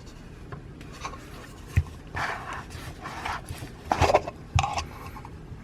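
Hands handling a small plastic USB mini humidifier and its parts: scattered light clicks and knocks with short bouts of rubbing and scraping.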